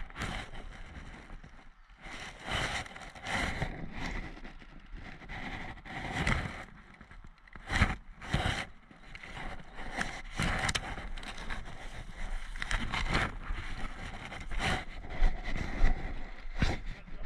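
A person moving on foot through woodland undergrowth: footsteps crunching on dry leaves and twigs, and foliage brushing against clothing and the camera. The rustling is irregular, with a few sharper cracks.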